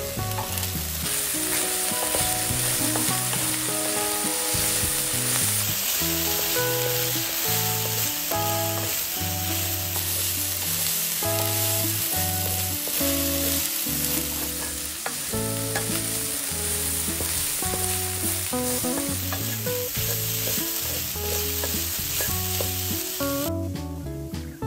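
Minced meat sizzling as it fries in a nonstick wok, stirred with a spatula. The sizzling drops away sharply near the end.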